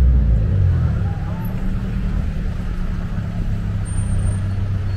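Low, steady rumble of road traffic, with a motor vehicle's engine running close by.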